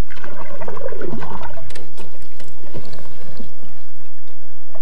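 Water and wet mud sloshing and gurgling as hands work in a muddy river bank, with a few light knocks.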